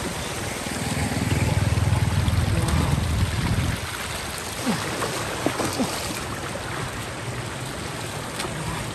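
Floodwater running and trickling, with a low rumble during the first few seconds.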